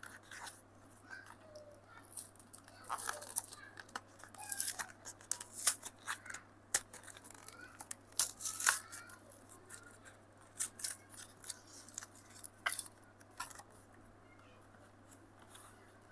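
Packaging of a Hot Wheels diecast car being opened by hand: irregular snips, tearing and crackling of card and plastic, busiest in the middle and tailing off near the end.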